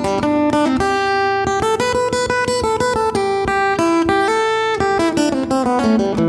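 Instrumental break of a gospel song: a guitar plays a melody of quick single notes over a steady beat.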